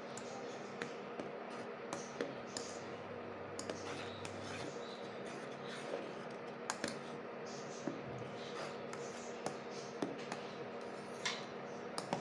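Metal spoon stirring hot milk in a stainless steel saucepan, making irregular small clicks and scrapes against the pan, over a faint steady hum.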